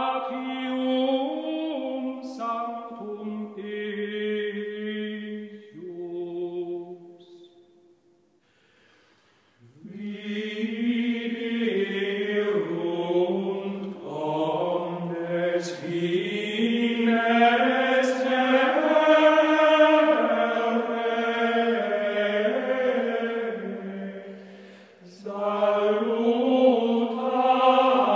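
Slow vocal chant in long held notes that step up and down in pitch, with several voices overlapping later on. It breaks off for about two seconds around a third of the way in, then resumes, fading briefly near the end before coming back.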